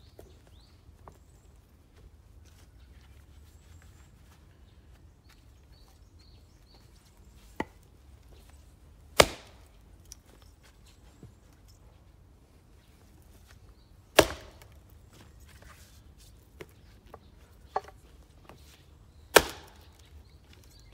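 Three heavy axe strikes into a black locust round, about five seconds apart, each a sharp crack of steel biting into wood, with a few lighter knocks between them.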